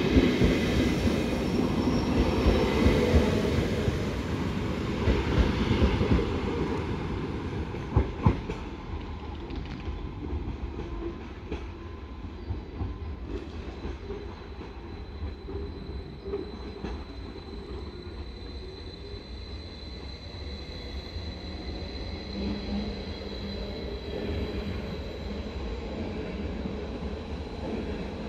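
BLS RABe 515 'Mutz' double-deck electric multiple unit pulling away and passing, its running noise loudest at first and fading over several seconds as it draws off. A couple of sharp clicks come about eight seconds in. After that comes a quieter steady rumble with a faint high steady whine.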